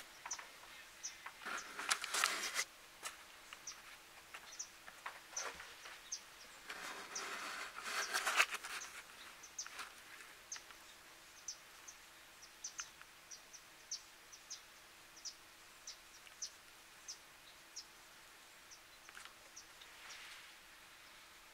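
Quiet woodland-edge ambience: short, high chirps repeat irregularly throughout. Two bursts of rustling come about a second and a half in and again from about six and a half to eight and a half seconds in.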